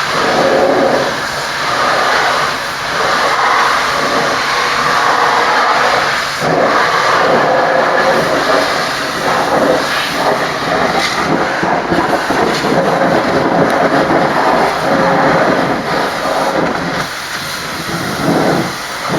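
High-pressure washer jet spraying a truck, a loud hissing rush of water that swells and dips as the jet moves over the cab and chassis.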